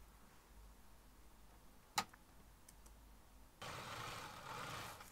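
A sharp click about two seconds in, then a Singer Symphonie domestic sewing machine starts stitching a second and a half later, running steadily and stopping near the end.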